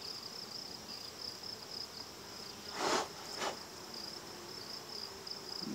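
An insect's steady high-pitched trill runs on unbroken, with two short rustles of handling about three seconds in, half a second apart.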